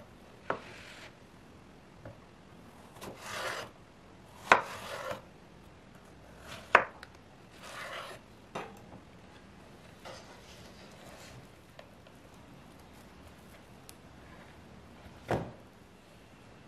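Knife cutting lengthwise through zucchini on a wooden cutting board: several short scraping cuts through the flesh and sharp knocks of the blade against the board.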